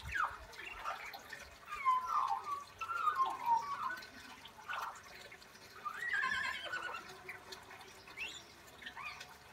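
Australian magpie singing a broken run of short warbles and sliding whistled notes, with a wavering, shaking call about six seconds in that mimics a horse's whinny.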